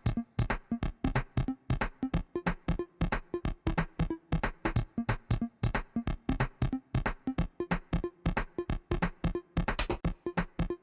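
Background music: a light electronic tune of short, bouncy notes over a steady drum-machine beat.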